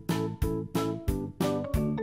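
Background music: bright pitched notes struck on a quick steady beat, about three a second.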